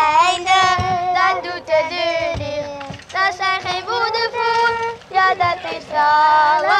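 A child singing a song in a high voice, with long held and sliding notes.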